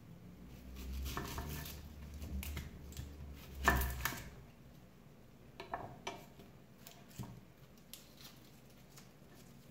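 Kitchen knife cutting an onion on a wooden cutting board: short slicing scrapes and knocks of the blade on the board, the loudest knock about three and a half seconds in. After that, a few lighter clicks and rustles as the onion is handled.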